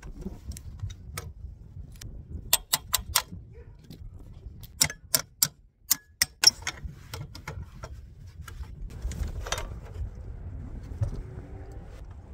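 A claw hammer tapping sharply on a roof fitting, about ten quick strikes in three short runs. Low steady background rumble and handling rustle follow.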